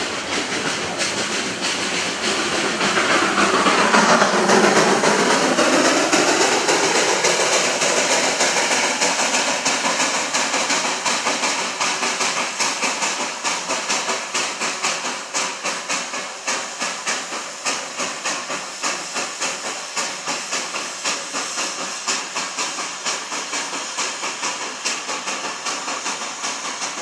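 Darjeeling Himalayan Railway B-class steam locomotive working hard on the climb, with a steady loud hiss of steam and a sweeping whoosh a few seconds in. Regular exhaust beats follow as it pulls away, fading slowly.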